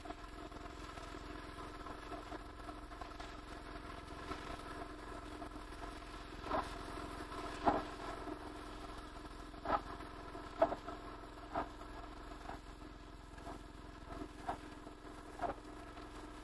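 Pressure washer running steadily as its jet cleans a metal road sign, with several short, louder bursts from about six seconds in.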